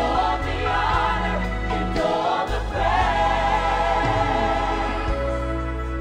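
Gospel choir singing with instrumental accompaniment, the voices sliding between held notes over sustained low bass tones. The music softens near the end.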